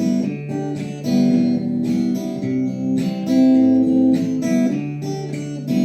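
Acoustic guitar playing on alone after the last sung line, a chord about every second with the notes left ringing.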